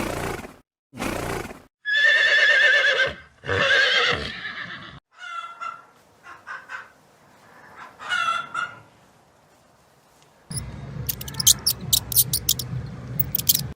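Horses whinnying: two long neighs with a wavering pitch, about two and four seconds in, followed by shorter, fainter calls. Near the end, a steady noisy stretch with sharp clicks.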